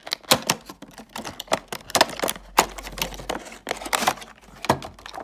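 Cardboard retail box being opened and a clear plastic packaging tray pulled out of it by hand, giving an irregular run of sharp plastic clicks and crackles.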